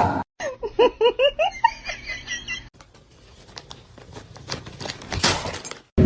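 Giggling: a quick run of short, high, rising-and-falling giggles, about five a second for roughly two seconds, then faint rustling and light knocks.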